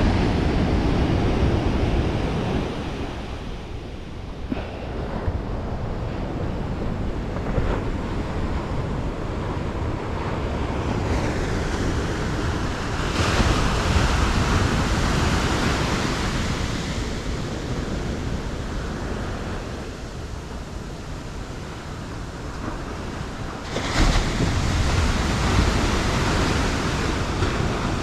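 Ocean surf breaking and washing up the beach, swelling loudest a little under halfway through and again with a sharp break near the end, over wind rumbling on the microphone.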